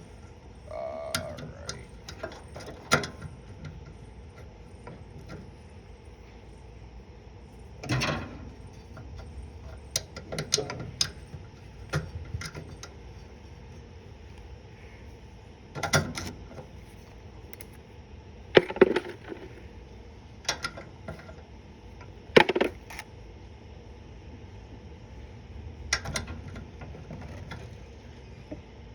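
Hand tools clinking and clanking on metal at irregular intervals, a dozen or so sharp knocks, while a carburetor is bolted onto a small lawn tractor engine.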